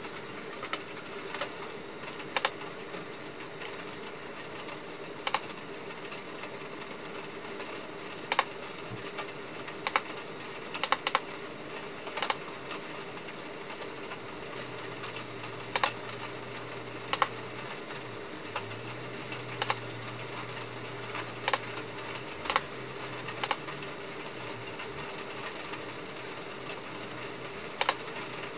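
Plastic menu buttons on the KOORUI 22N1 monitor being pressed one at a time to step through its on-screen settings menu: sharp clicks, sometimes two in quick succession, every one to three seconds, over a low steady hum.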